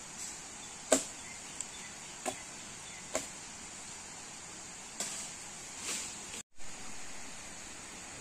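A few sharp woody knocks and cracks, irregularly spaced, as a man climbs through a tree's branches; the loudest comes about a second in. A steady high hiss sits underneath.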